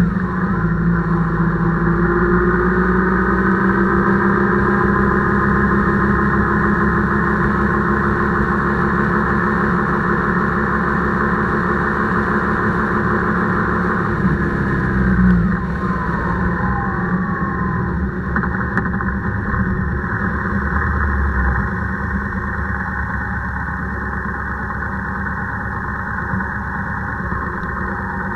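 Motorcycle engine running at road speed, with wind rushing over the microphone. The engine's pitch climbs in the first few seconds and drops about halfway through, with a brief bump in level there.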